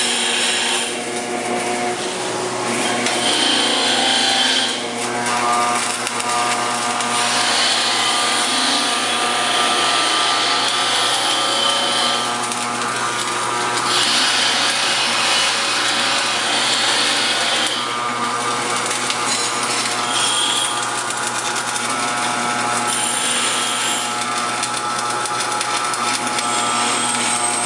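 Electric arc welding: the arc crackles and hisses in several stretches of a few seconds each, over a steady hum from the welding machine.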